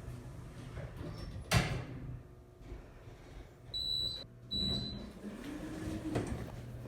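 Elevator car after a 'going up' announcement: a steady low hum, a sharp knock about a second and a half in, and two short high beeps around the middle.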